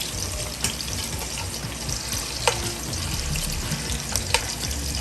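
Meatballs frying in shallow oil in a skillet over medium heat: a steady sizzle with three sharp pops spread through it.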